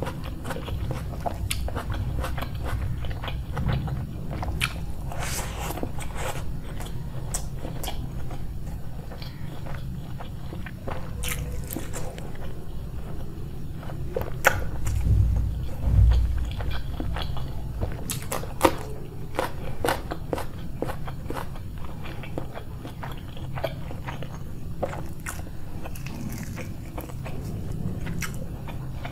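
Close-miked eating sounds: chewing and crunchy bites, with many short sharp clicks and smacks throughout and a louder low thump about halfway through.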